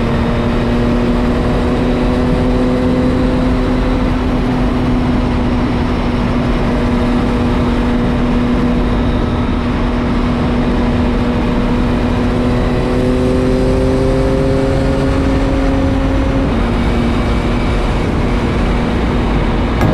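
Yamaha MT-09's three-cylinder engine running at a steady cruise under heavy wind rush, its note creeping up slightly and then dropping about three-quarters of the way through as the throttle eases.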